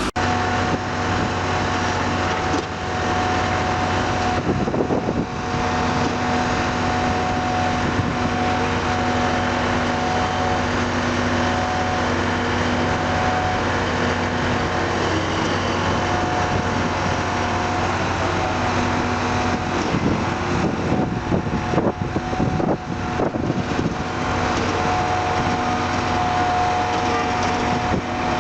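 Engine of a heavy earthmoving machine running steadily, with a few knocks about five seconds in and again around twenty seconds in.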